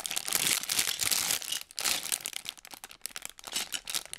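Clear plastic parts bags full of LEGO pieces crinkling as hands handle and turn them. The crinkling comes in irregular bursts, with a short break a little before the middle.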